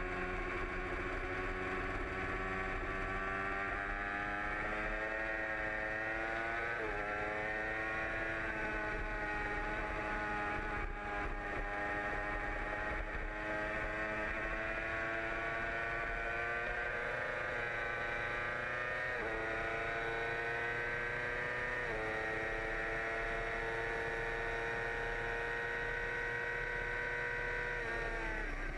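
2008 Yamaha R6's inline-four engine running hard at race pace, its pitch climbing slowly and steadily, with a few quick steps in pitch along the way. Right at the end the revs dip sharply and waver.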